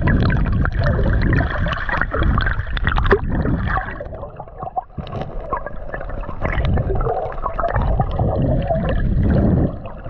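Water gurgling and sloshing, heard underwater and muffled, with many scattered clicks and knocks.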